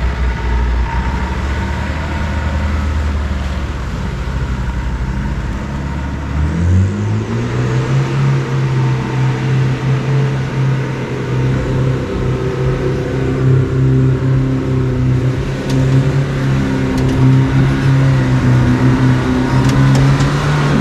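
Land Rover four-wheel drive's engine running low and steady, then revving up sharply about six seconds in and holding high revs under load as it climbs a steep dirt hill. A few sharp clicks near the end.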